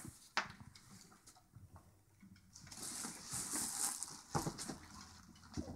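Cloth rustling as a toddler handles and flings clothes inside a suitcase, loudest for about a second and a half in the middle, with a few soft knocks.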